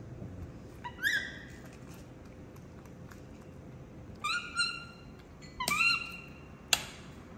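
Baby monkey's high, squeaky calls, each rising quickly and then holding: one about a second in, then a cluster of three or four between about four and six seconds in. A sharp click comes shortly before the end.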